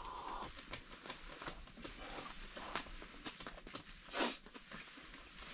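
Quiet sounds of a person sipping from a mug and shifting in his seat: scattered light clicks and rustles, with one short breathy puff about four seconds in.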